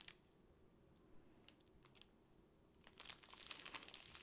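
Faint crinkling of a clear plastic sleeve of diamond-painting drill bags being handled and turned over: a few scattered crackles at first, then denser crinkling from about three seconds in.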